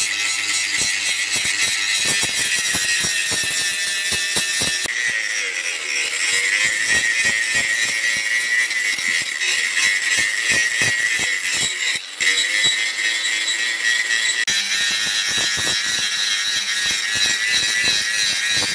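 Angle grinder with an abrasive disc grinding a steel axe head: a steady high whine with a gritty hiss of disc on metal, dipping briefly about twelve seconds in.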